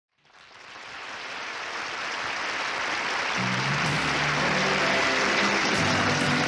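Opening of a pop-rock band's song: a noisy wash swells up from nothing, and about three and a half seconds in, low electric guitar and bass notes come in.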